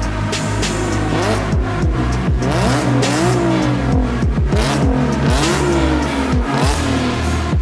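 Audi S4 B8.5's supercharged 3.0-litre V6 free-revved several times through an ARMYTRIX exhaust, each rev climbing and then falling back. Electronic music with a steady beat plays underneath.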